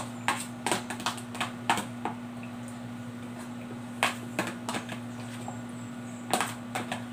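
Metal spoon scraping and clicking against the inside of a clear plastic tub in short clusters, three bursts of clicks, over a steady low hum.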